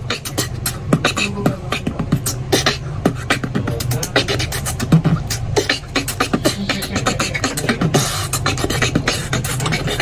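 Human beatboxing: a solo performer making rapid rhythmic percussive clicks and beats with the mouth, over a steady low bass.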